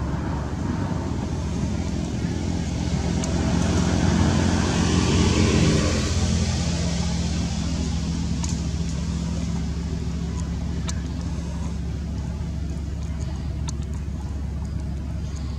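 A motor vehicle's engine running with a steady low hum, with road noise swelling and fading about four to seven seconds in, as of a vehicle passing.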